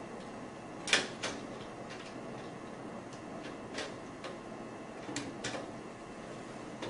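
Flathead screwdriver tip clicking against a small plastic gear on the printer's metal side frame while the gear is pried off its shaft: a few scattered sharp ticks, the loudest about a second in.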